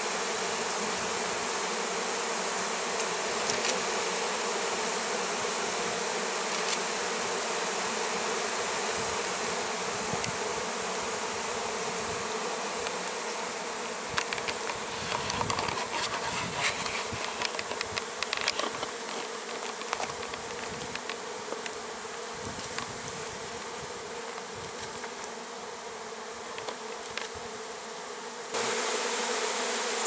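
A disturbed colony of honeybees buzzing in a steady hum. Light clicks and taps come through in the second half, and the buzzing jumps suddenly louder shortly before the end.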